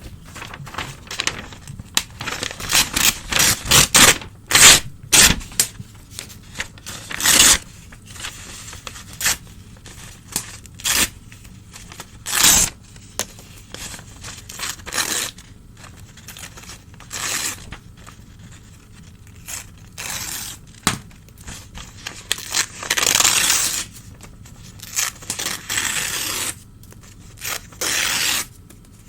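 Old newspaper being torn by hand: an irregular run of short rips with rustling between, and a few longer tears.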